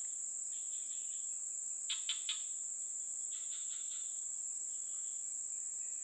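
Night chorus of crickets: a steady high-pitched trill throughout, with softer chirping bursts from other insects and three sharp clicks about two seconds in.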